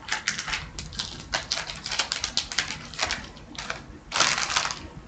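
Paper-and-foil crackling from a hockey card pack being handled and torn open, with cards riffled: many quick, irregular clicks and a longer tearing rustle about four seconds in.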